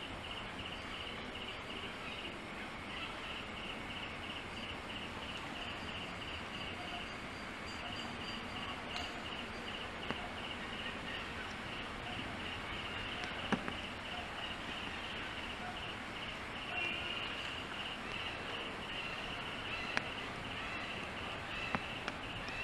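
Insects chirping in a fast, even pulse, about four a second, over a steady outdoor background hiss, with a few sharp clicks now and then.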